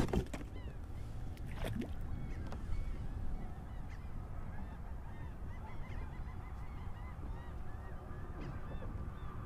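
Gulls calling repeatedly in short cries, over a steady low rumble of wind and water, with a couple of sharp knocks near the start.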